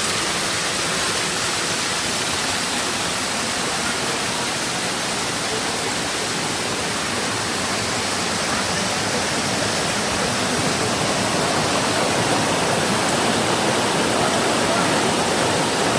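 Rushing water, a steady, even rush with no breaks, growing slightly louder in the second half.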